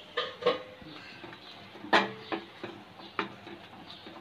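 Spatula knocking and scraping against a black kadai as ground spices are stirred into a thick masala paste: a series of irregular clicks and knocks, some ringing briefly off the pan, the loudest about two seconds in.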